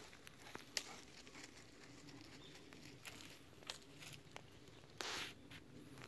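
Faint scattered ticks and crackles of dead twigs and leaf litter, with one brief rustle about five seconds in.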